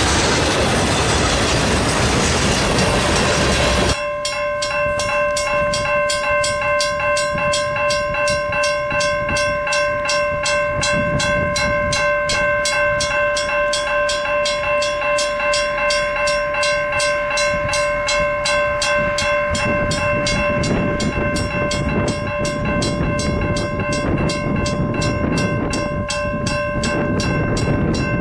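Freight train cars rushing past close by for the first few seconds, then a railroad grade crossing's warning bell ringing in rapid, even strokes. From about twenty seconds in, the low rumble of an approaching train builds under the bell.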